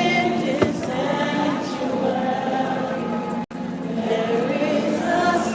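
Choir singing a slow worship song in long held notes. The sound cuts out for an instant about three and a half seconds in.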